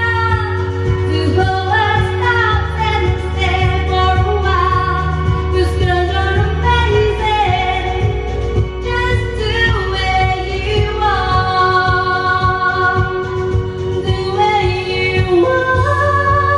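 A woman singing a pop song live into a microphone over backing music with a steady bass line, her voice gliding between held notes.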